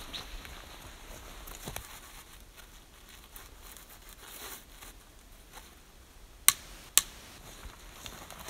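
Dry dead twigs being broken off a spruce trunk by hand: rustling and crackling of small branches, then two sharp snaps about half a second apart near the end.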